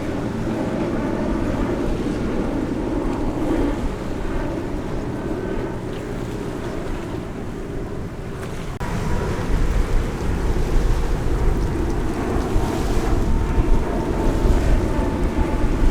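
Sea breeze buffeting the microphone over waves washing on the shore. About nine seconds in the rumble grows louder and a faint steady tone joins it.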